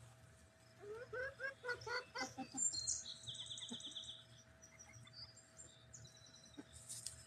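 Hens clucking softly in a quick run of short notes, followed about a third of the way in by a wild songbird's rapid high trill and a few faint high chirps.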